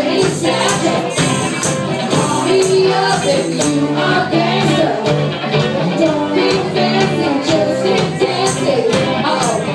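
Live rock band playing loudly: electric guitars, drums with steady cymbal hits, and a woman singing lead into a microphone.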